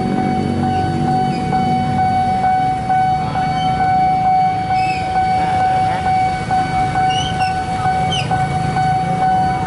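Railway level-crossing warning siren sounding one continuous steady tone, over the running engines of vehicles at the crossing. A deeper engine rumble stands out in the first two seconds or so, then fades into general traffic noise.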